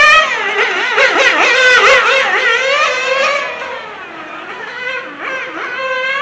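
1/8-scale radio-controlled on-road racing car's small nitro engine buzzing at high revs, its pitch swooping up and down as it accelerates and brakes through the corners. Louder for the first three and a half seconds, then fainter as the car runs to the far side of the track.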